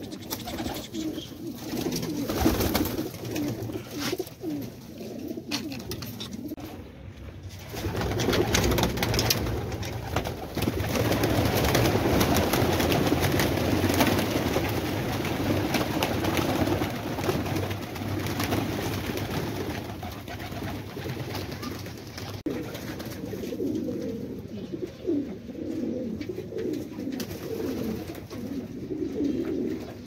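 Domestic pigeons cooing, with a louder stretch of wing flapping and fluttering in the middle as birds take off in the loft yard.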